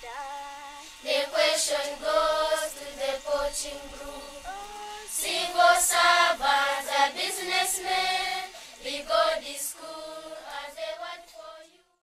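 A choir of schoolchildren singing a song together, which cuts off suddenly near the end.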